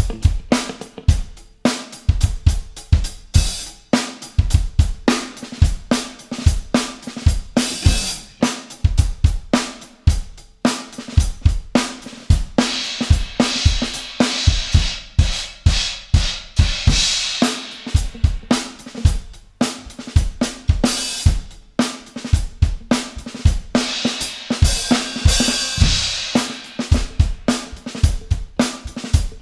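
Drum kit solo in a funk style: kick drum, snare and hi-hat hammering out a busy groove, with cymbals ringing out for a few seconds about halfway through and again near the end.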